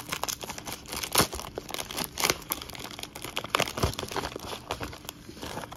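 A padded bubble mailer being torn open and handled, crinkling and tearing in irregular crackles with a few louder rips.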